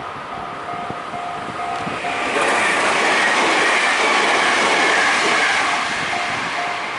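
A train passing at speed: a rushing rumble that swells about two seconds in and eases off near the end. Through it, a railway level crossing warning bell rings in quick, evenly spaced dings.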